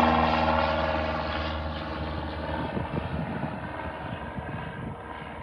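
Small propeller plane's engine droning as it climbs out after takeoff, loudest at the start and fading steadily as it flies away.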